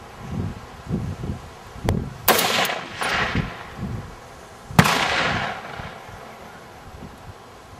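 Two rifle shots from a 7.62x54R Dragunov-pattern rifle, about two and a half seconds apart, each followed by a long rolling echo that fades out.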